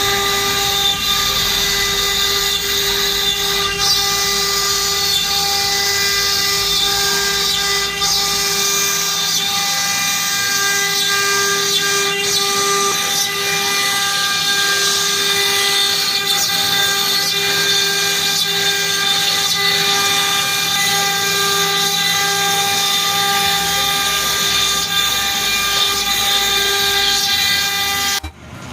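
CNC router spindle running at high speed while cutting, a steady high whine over a hiss of cutting noise. It cuts off abruptly near the end.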